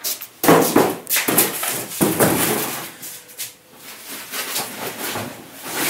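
Cardboard box and packaging being handled: irregular rustling, scraping and knocking, loudest in two bursts about half a second and two seconds in.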